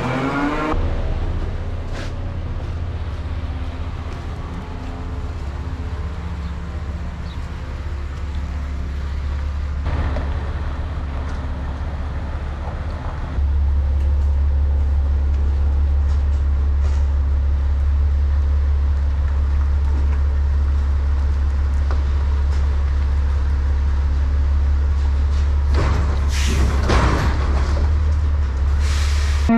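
A vehicle engine running with a steady low rumble that turns abruptly louder about halfway through, with a short hiss of noise near the end.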